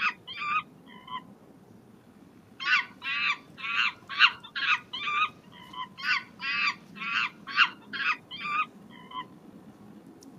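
Chimpanzee calls: a rapid series of short, high-pitched cries, about two a second. A short run ends about a second in, and after a pause a longer run goes on until near the end.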